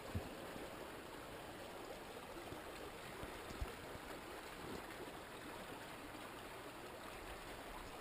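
Faint, steady rush of shallow river water flowing around the wader's legs and the reed bank, with a couple of small ticks.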